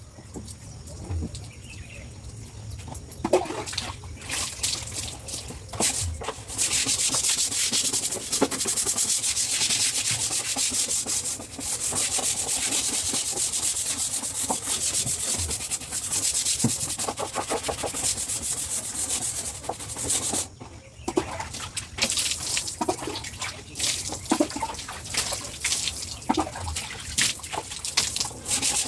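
Rapid, continuous scraping strokes against a hard surface, starting after a few scattered knocks about six seconds in, with a short break about two-thirds through before resuming.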